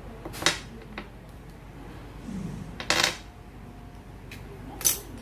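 A few separate sharp clicks and clatters of small hard items being handled, as a battery is fitted into a small battery-powered gadget.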